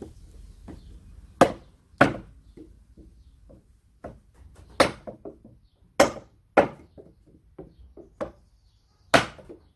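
Steel hammer striking wood on a pallet, about seven loud irregular blows with lighter knocks between, driving a pallet board loose from its nails.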